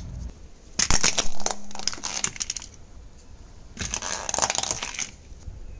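A car tyre rolling over whole eggplants and crushing them: bursts of crunching and splitting, the first about a second in and the second around four seconds in.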